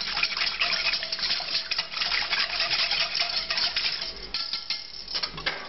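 Wire whisk beating milk into a roux in a stainless steel saucepan: a fast run of metal clinks and scrapes against the pan as the sauce thickens. The whisking stops about four seconds in, leaving a few scattered clicks.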